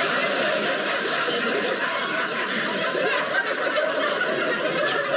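Theatre audience laughing, a continuous wash of many people laughing together at a steady level.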